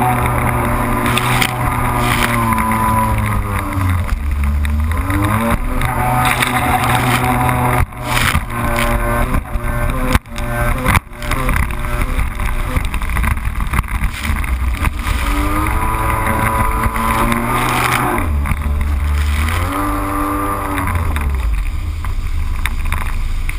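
Yamaha GP1300 WaveRunner's two-stroke three-cylinder engine running at speed over water, heard close up from the front of the hull. Its pitch drops and climbs back twice, about four seconds in and again near eighteen seconds, as the throttle is eased off and reapplied, and around eight to eleven seconds in the sound briefly breaks up in short drops.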